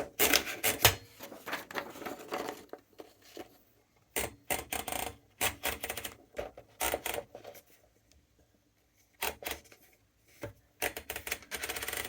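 Montgomery Ward Signature 510D typewriter clattering: irregular bursts of sharp mechanical clicks with short silent gaps between them.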